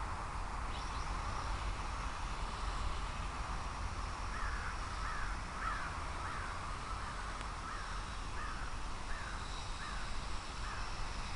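A bird calls about a dozen times in an even series, roughly two calls a second, over a steady rush of wind on the microphone.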